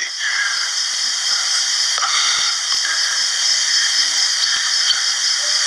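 Steady hiss of recording noise, about as loud as the talk around it, with no speech.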